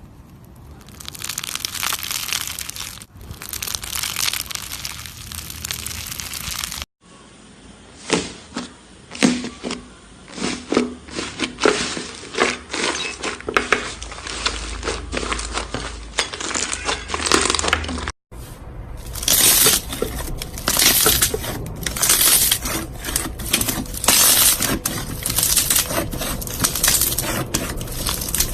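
Slime being squished and worked by hand, with dense crackling and popping. The sound cuts off abruptly twice; the middle stretch has sharper, separate pops.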